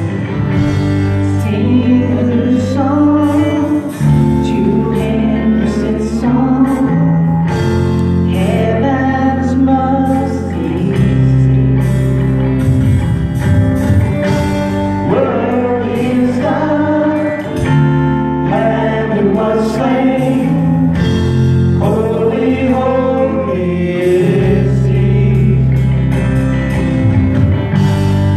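A live worship band playing a gospel-style praise song: voices singing over acoustic guitar and a steady low bass line.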